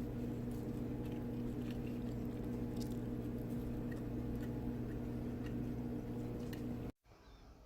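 Steady low room hum with faint, scattered clicks and taps; it cuts off abruptly near the end into a much quieter background.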